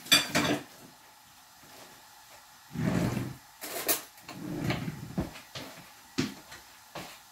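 Kitchen clatter of cupboards and dishes being handled: a series of sharp clicks and knocks, with two duller thumps about three and five seconds in.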